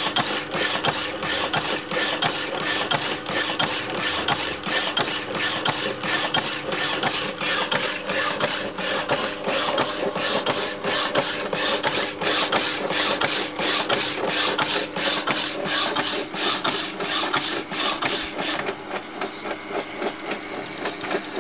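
An old power hacksaw, thought to date from the 1920s, sawing through a metal rod. Its blade rasps on every stroke, about two and a half strokes a second, over a steady hum from its drive. The strokes get quieter a few seconds before the end.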